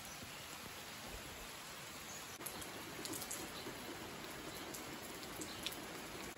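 Steady rain falling, with water running and dripping off a roof edge; a few sharper drip ticks stand out through the middle and near the end.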